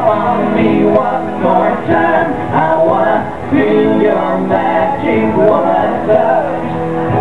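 Live band performing a sixties pop song: a man singing over strummed acoustic guitars.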